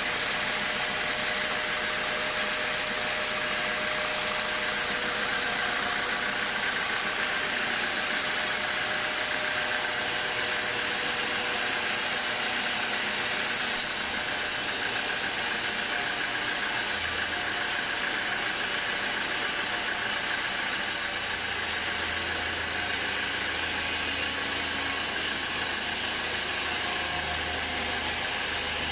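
Homemade band sawmill running, its blade cutting lengthwise through a teak log: a loud, steady, unbroken sawing noise. About halfway through the tone shifts and a deeper hum comes in beneath it.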